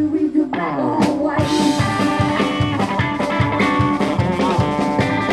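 Live rockabilly band playing: electric hollow-body guitar, upright double bass and drum kit. After a brief break near the start, with a falling run, the full band comes back in about a second and a half in.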